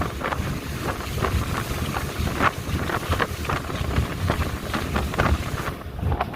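Wind buffeting the microphone on a speedboat under way, over the boat's low engine rumble and rushing water, with frequent irregular knocks. The high hiss dips briefly near the end.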